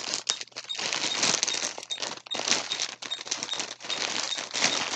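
Plastic packaging bag crinkling and rustling irregularly as skeins of yarn are handled and pulled from it.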